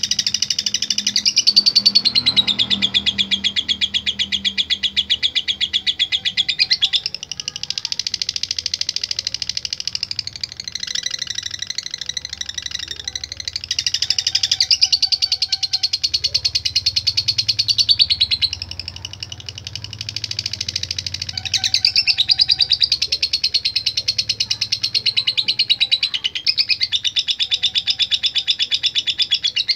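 Lovebird chattering non-stop in a long rapid stream of high, shrill notes, the drawn-out 'ngekek' song that keepers prize. Its pitch and loudness shift slightly every few seconds without a break.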